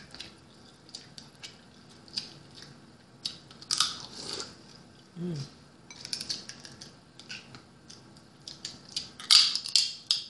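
Boiled blue crab claw shells cracking and crunching as they are broken apart by hand and bitten: a scatter of sharp crackles and clicks, with the loudest run of crunching near the end.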